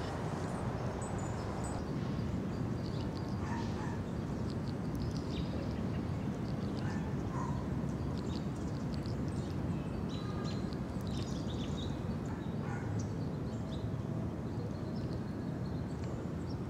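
Outdoor park ambience: a steady low background rumble with scattered short, high chirps of small birds.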